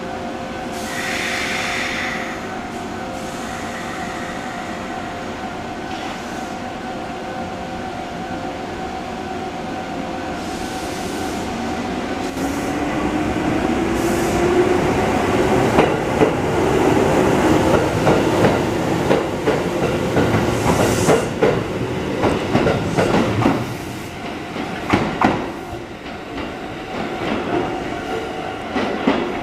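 Kotoden electric train pulling away from the platform. A short hiss of air comes about a second in over a steady hum. From about twelve seconds the traction motor whine rises in pitch as the train gathers speed, and the wheels then clatter loudly over rail joints and points for several seconds, with fewer knocks near the end.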